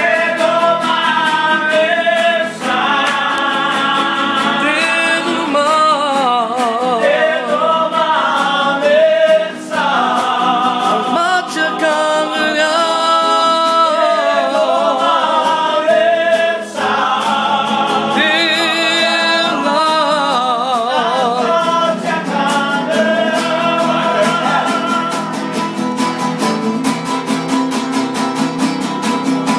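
Singing with a wavering, vibrato-laden melody over two nylon-string classical guitars strummed in a steady rhythm. Near the end the voice drops away and the guitars carry on.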